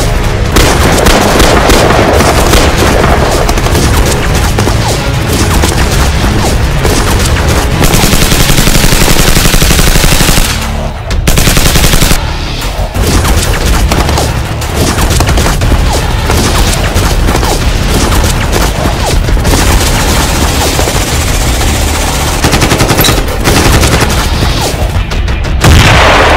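Sustained rapid machine-gun fire, dense and loud, with a music track running beneath it.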